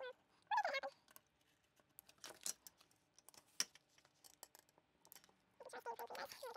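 Small curved embroidery scissors snipping fabric close to the stitching: a few faint, sharp clicks, with a short squeaky sound about half a second in and again near the end.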